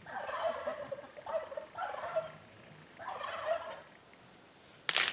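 Domestic fowl calling in four short warbling bursts. Near the end comes a sharp, loud crack as a large ice-laden tree limb breaks off.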